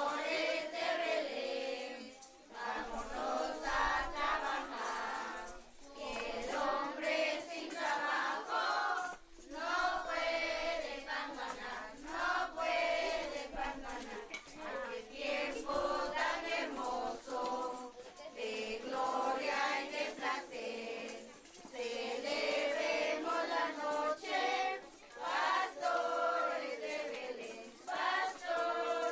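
A group of children singing a posada song together in unison, in phrases of a few seconds with short breaks between them.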